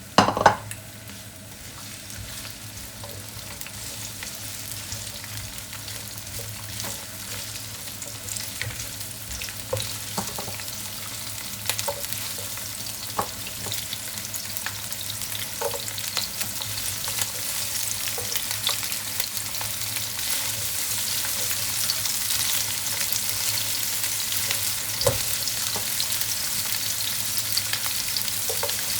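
Garlic and onion sizzling in plenty of cooking oil in a frying pan. The sizzle grows steadily louder, with scattered clicks and scrapes as a spatula stirs it and one loud knock right at the start.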